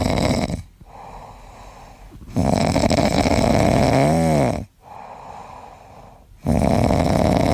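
Loud snoring from a sleeping pet: long rasping breaths about two seconds each, coming about every four seconds, with quieter breathing between them.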